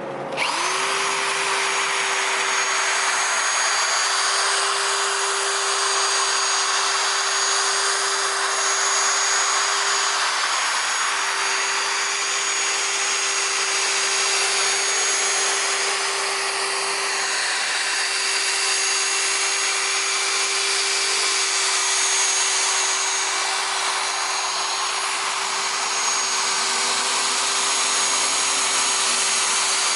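Electric car polisher with a wool pad running on the painted fender at a steady speed, with a constant motor whine over the pad's rubbing noise, buffing out the paint to bring up a shine. It starts about half a second in.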